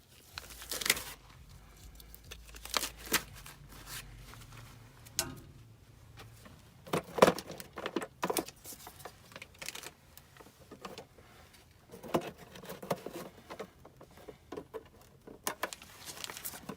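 Scattered knocks, scrapes and rustling of someone moving about and handling things while crawling in a crawlspace, with a faint low hum during the first few seconds.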